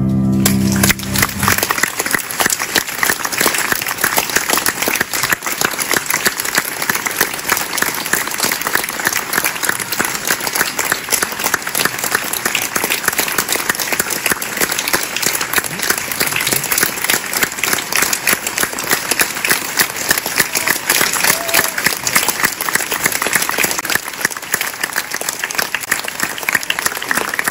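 Audience applauding: dense, sustained clapping that starts as the last piano chord rings out and dies in the first second and a half.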